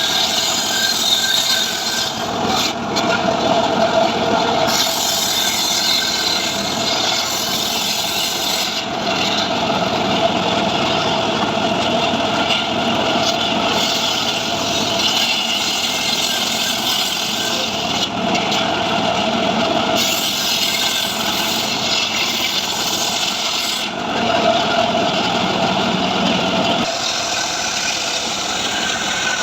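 Engine-driven saw running and cutting dry mahogany, the sound changing every few seconds as the load on the blade comes and goes.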